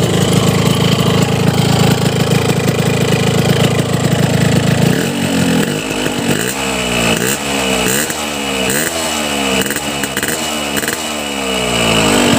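Two-stroke motorcycle engine, warmed up, idling through a Boban C33 exhaust, then blipped about halfway in: some seven or eight quick revs, each rising and falling, before it settles back to idle near the end.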